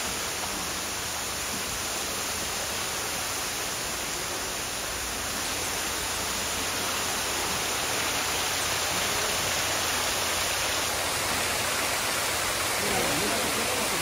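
Waterfall, a steady rush of falling water, with faint voices near the end.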